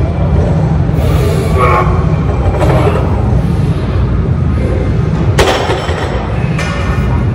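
Heavily loaded deadlift barbell dropped back to the floor after the lift: one heavy thud about five seconds in, its plates rattling briefly. Throughout, there is steady background music with a heavy low end.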